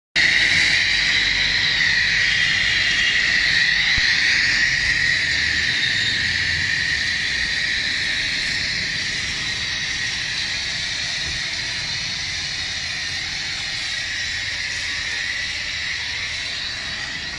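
Pressure-washer lance spraying foam and water onto a motorcycle: a steady, loud hiss of the jet, easing off slightly after the first few seconds.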